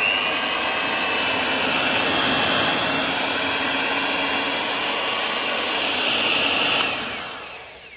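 Nikai electric hand mixer running empty on speed 1, its motor giving a steady high whine with the beaters spinning in the air. Near the end it is switched off and winds down, the whine falling in pitch and fading.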